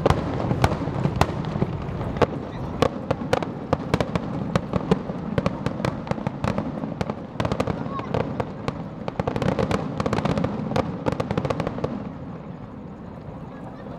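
Fireworks finale: a dense, rapid volley of aerial shell bangs and crackles, many reports a second, easing off for the last couple of seconds.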